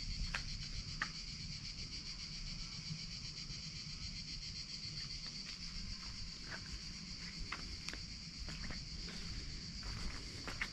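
Steady, high-pitched buzzing of cicadas, with scattered footsteps clicking and scuffing on stone paving.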